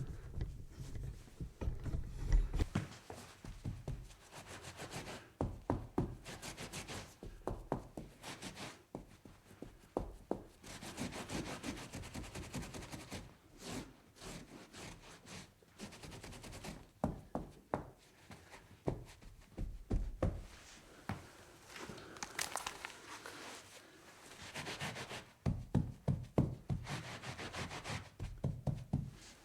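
A cloth wiping and scrubbing a wooden tabletop in irregular strokes, with frequent light knocks and clicks against the surface.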